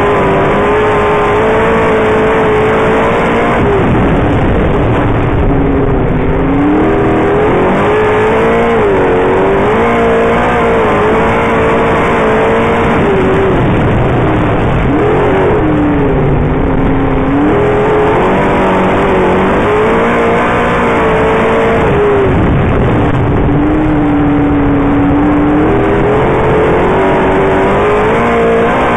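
358 cubic-inch small-block V8 of a dirt modified race car at racing speed, heard on board. The engine note rises and falls lap after lap, dropping off into the turns and climbing again as it accelerates out.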